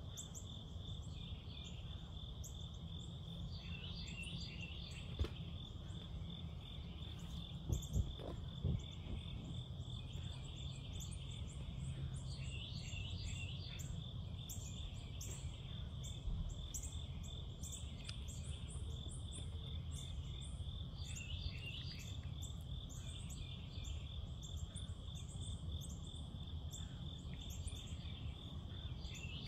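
Night insect chorus: a steady, high, pulsing trill of crickets with quick chirps of other insects over it, above a low background hum. A few short knocks come about five and eight seconds in.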